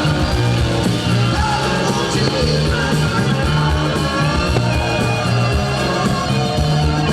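Rock music with singing, playing steadily at full volume.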